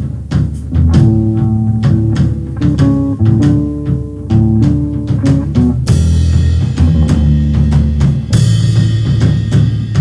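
Live pop band playing an instrumental intro: a drum-kit beat under a melody of short notes that comes in about a second in. A cymbal crash comes about six seconds in and again about two seconds later.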